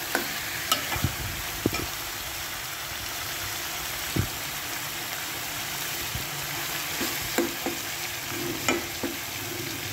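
Chicken pieces and browned onions sizzling in oil in a steel pot over high heat, with a spoon scraping and knocking against the pot now and then as they are stirred. The chicken is frying off the water it has released.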